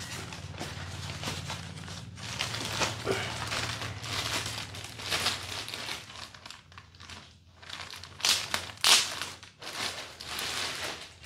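Clear plastic packaging bags crinkling and rustling as a wrapped speaker is handled and lifted out of its box. The crinkling is irregular, with its loudest crackles about eight to nine seconds in.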